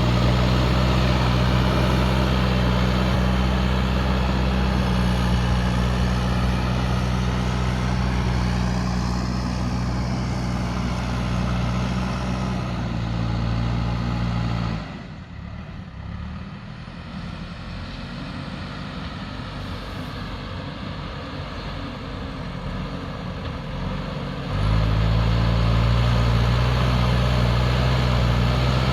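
Diesel engine of a JCB backhoe loader running steadily. About halfway through it drops suddenly to a quieter, lower rumble for roughly ten seconds, then comes back just as abruptly to the same steady running.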